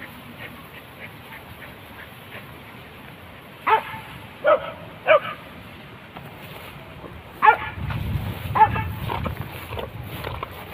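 Hunting dogs barking: about six separate barks spread through the second half, with a low rumbling noise under the later ones.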